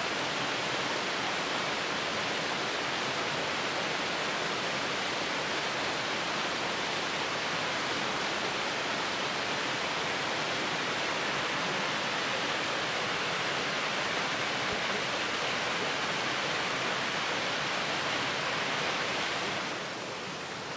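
Steady rush of river white water from a nearby waterfall, an even roar without a break. About a second before the end it drops to a quieter, thinner hiss.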